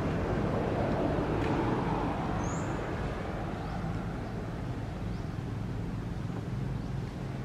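Steady low outdoor background rumble, with one brief faint high chirp about two and a half seconds in.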